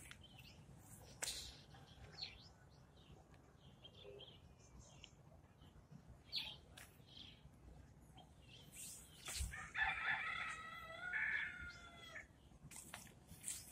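A rooster crows once, a single long call of about two and a half seconds near the end, over faint scattered clicks and chirps.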